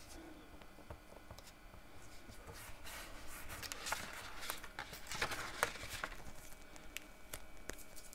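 Faint handling sounds of adhesive tape being laid and pressed along a sheet of vellum paper: light rustling and scattered small ticks, busiest in the middle, then a paper rustle near the end as the sheet is lifted.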